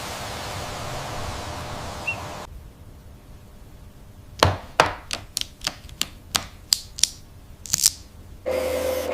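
A run of about a dozen sharp, light knocks of small hard objects at an uneven pace, one to two a second, after a few seconds of steady background noise.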